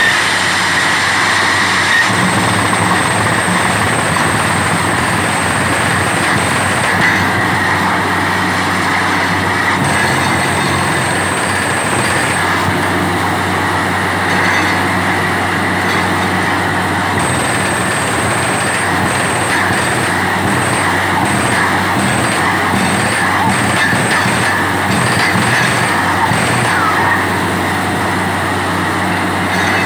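Truck-mounted borewell drilling rig running steadily while it drills: engine and air compressor drone under the hiss of air blowing rock cuttings up around the drill pipe, with a high whine that cuts in and out several times.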